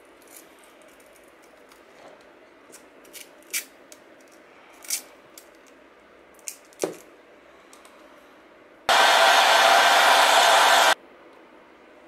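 A steel pick tool scratching and scraping at the plastic hub of a PC case fan in short, separate strokes. About nine seconds in, a loud, steady hiss lasting about two seconds starts and cuts off abruptly.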